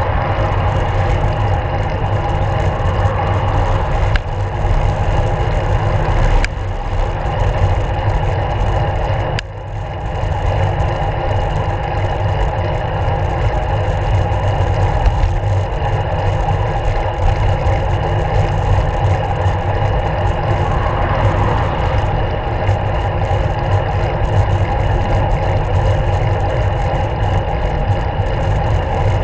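Steady rush of wind and road vibration on a handlebar-mounted action camera as a road bike rides along a town road, with car traffic around. The loudness dips briefly about nine seconds in.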